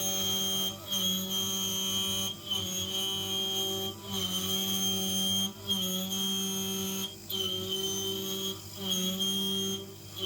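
Stepper motors of a CNC milling machine whining as its axes move, with the whine cutting out briefly and starting again about every second and a half as the moves change.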